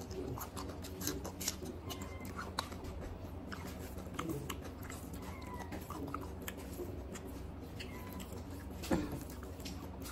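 Close-up eating sounds of a person chewing a mouthful of rice and chicken curry with wet mouth clicks and smacks, and fingers mixing rice on a banana leaf. There is a louder click about nine seconds in, over a steady low hum.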